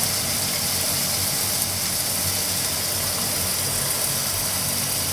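Chicken frying in a wide pan under a glass lid: a steady sizzle, with a low steady hum underneath.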